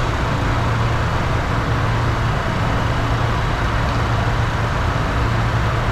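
Steady cockpit noise of a Bombardier Challenger 604 jet climbing at climb thrust: an even rush of air with a steady low hum underneath.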